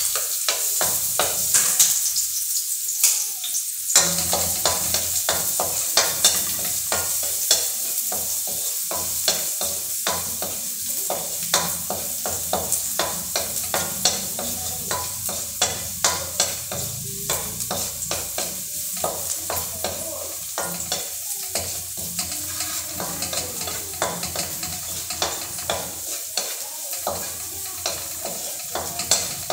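Garlic sizzling as it fries in annatto oil in a metal frying pan, with a utensil stirring it and knocking and scraping against the pan in quick, uneven clicks over the steady sizzle.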